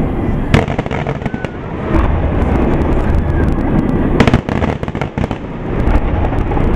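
Aerial fireworks shells bursting in quick succession: a continuous deep rumble of booms, with sharp cracks about half a second in and again around four seconds in.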